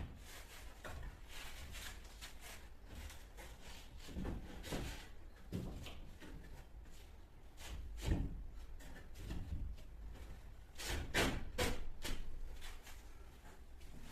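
Irregular knocks, bumps and scraping of boards and tools being handled, with a cluster of sharper knocks about eleven seconds in.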